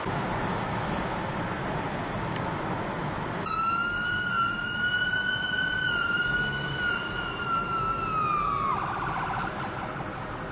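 Police car siren: about a third of the way in it starts with one long high wail held steady for about five seconds, then drops in pitch and switches to a fast warbling yelp. Under it runs the steady road and wind noise of a moving car.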